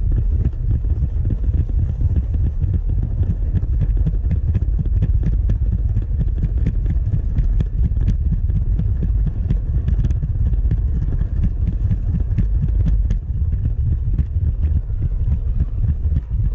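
Toy-brick model train running along plastic brick track, heard from on board: a steady low rumble from its motor and wheels with frequent small clicks.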